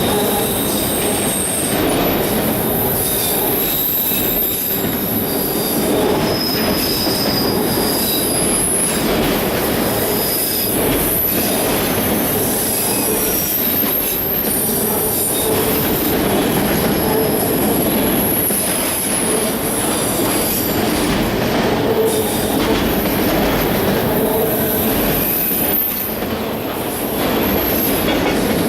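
CSX freight train rolling past, a steady loud rumble of wheels on rail with high, thin wheel squeals that come and go at changing pitches.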